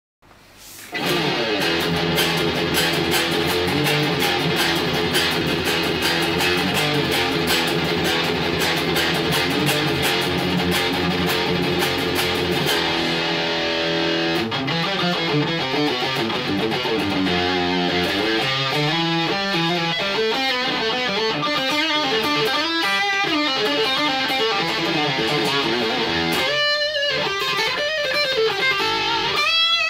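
Edwards ED-85TE electric guitar played through a Bugera 6262 valve amp, picked up by the camera's own microphone. For the first half it plays a fast, densely picked chord rhythm. It then moves into single-note lead runs with slides and bends, ending on held notes with vibrato.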